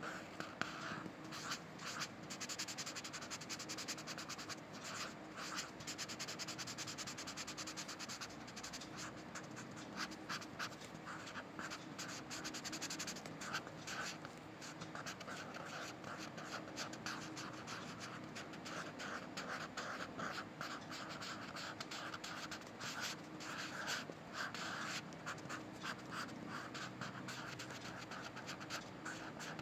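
Pencil lead scratching across textured drawing paper in a quick run of short strokes with brief pauses between them.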